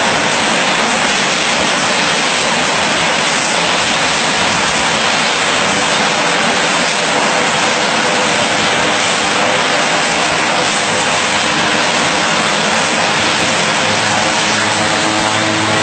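Propeller aircraft engines running steadily on the apron, a loud, even rush of engine and propeller noise. Near the end a steady engine hum stands out more clearly.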